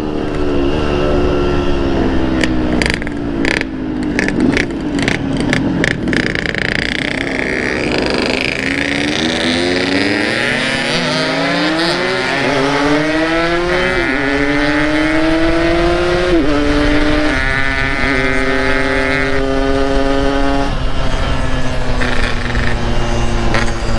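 Yamaha RX-King's 135 cc two-stroke single-cylinder engine under way, with a run of sharp crackles a few seconds in. Its pitch climbs steadily under throttle, drops suddenly at a gear change about two-thirds of the way through, then climbs again and holds steady at cruising speed.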